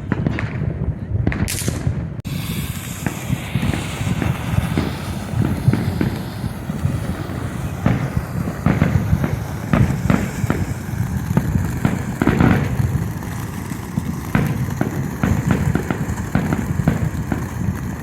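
Fireworks going off in quick succession: many pops and crackles over a continuous rumble, with a brief high hiss about a second and a half in.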